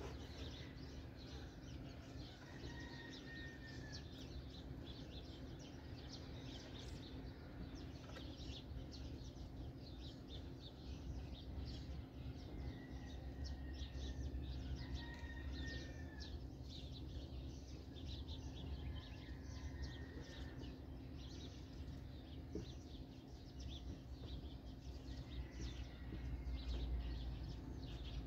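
Faint squeaks and scratches of a marker pen writing on a whiteboard, with several short squeaky drags, over a steady low hum.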